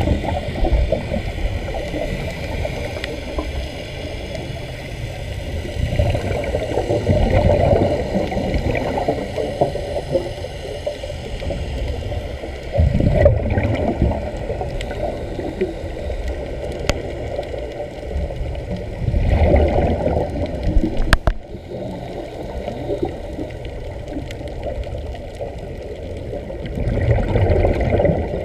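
Muffled underwater sound heard through a camera's waterproof housing: bubbling and rushing water that swell louder every several seconds as air from the divers' helmets vents out as bubbles. A sharp click sounds a little past the twenty-second mark.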